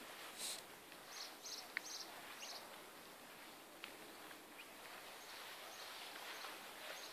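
Faint outdoor garden ambience, with a few short, high bird chirps in the first couple of seconds and an occasional light click.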